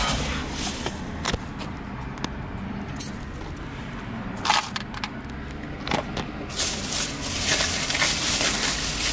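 Small clicks and knocks of things being handled inside a car, then a plastic shopping bag rustling for about two seconds near the end as it is set down on the seat.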